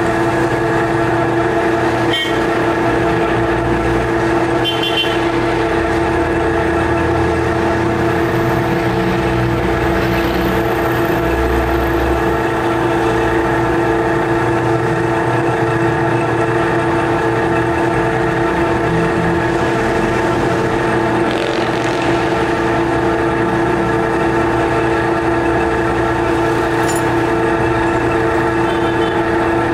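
Metal lathe running at a steady speed: a constant mechanical hum and whine holding several steady tones without change, with a few faint ticks.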